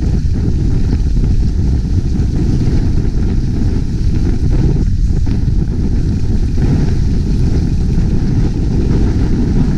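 Steady wind noise buffeting a GoPro HERO5 action camera's microphone during a fast downhill ski run, a deep, even rush with no let-up.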